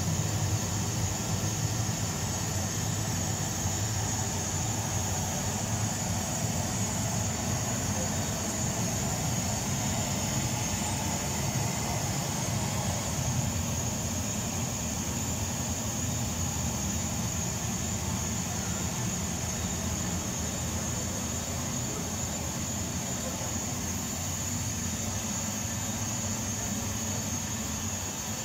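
Steady low rumble with a constant high hiss, the hall ambience of a model airport where jet-engine sound effects run for the model airliners.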